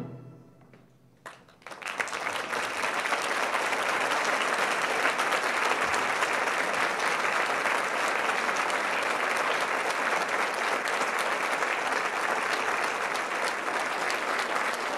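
A concert band's final chord cuts off and rings out briefly in the hall. After about a second and a half of quiet, the audience starts applauding and keeps up steady clapping.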